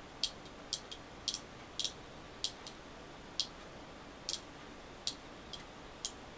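Crops Spider X cable lock's combination dials clicking as they are turned by hand: small, sharp clicks, irregular, about two a second, sometimes in quick pairs. The dials are being reset to a new passcode.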